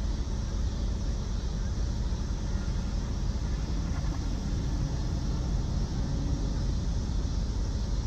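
Car engine idling steadily, a low even rumble heard from inside the car's cabin.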